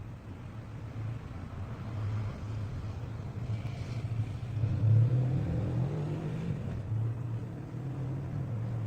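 A low droning rumble that swells to its loudest about five seconds in, then eases off.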